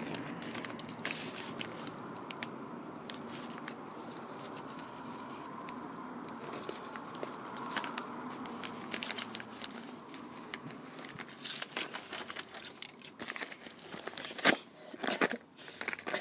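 Padded bubble envelope being torn open by hand, with plastic and paper crinkling and tearing. The tearing grows louder and sharper in the last few seconds as the envelope gives way.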